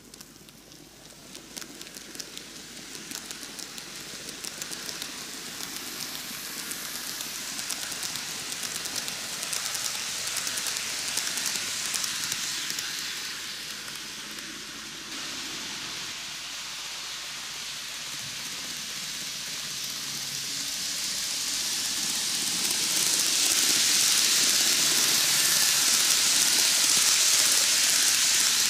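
N-gauge model electric train, a 12-car Keikyu 2100 series set, running on TOMIX superelevated track: a steady rushing rattle of wheels on the rails, with quick clicks over the rail joints. It grows louder toward about twelve seconds in, eases off as the train runs away round the loop, then swells to its loudest as the train comes back toward the microphone near the end.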